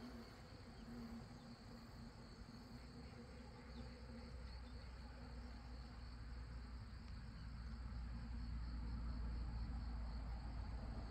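A steady, high-pitched insect chorus from the roadside vegetation, with a low rumble that grows louder over the second half.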